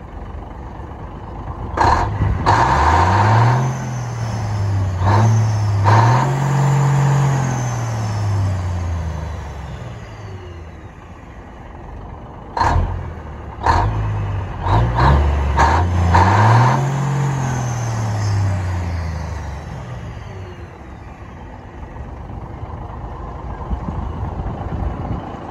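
Mack Superliner pull truck's diesel engine revved hard in two runs, its pitch climbing and falling back each time, then dropping to a lower steady idle. Sharp cracks go off several times during each run as flames shoot from its straight exhaust stacks.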